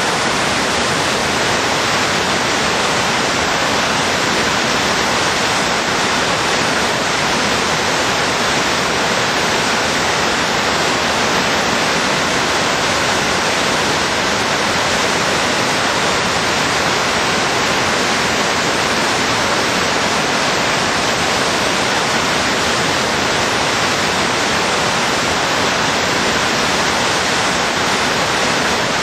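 Big whitewater rapid at high flow, around 46,000 to 63,000 cfs: a steady, dense rushing of crashing water that does not let up.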